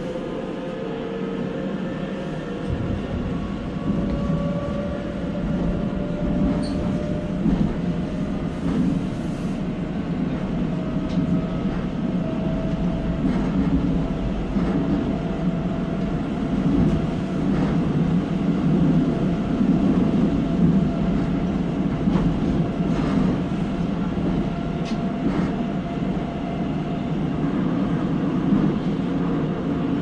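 Seoul subway train running, heard from inside the car: a steady rumble of wheels on rails under a motor whine that rises in pitch over the first half as the train gathers speed, then holds steady.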